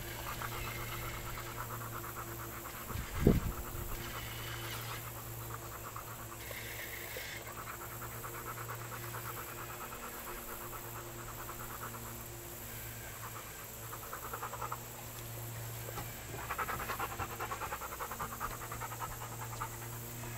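A yellow Labrador retriever panting fast in several spells that stop and start, loudest near the end. There is a single sharp thump about three seconds in.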